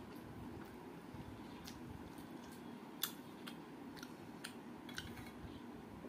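Close, soft eating sounds: fingers working rice on a steel plate and chewing, with a few sharp clicks, the loudest about three seconds in, over a faint steady background hum.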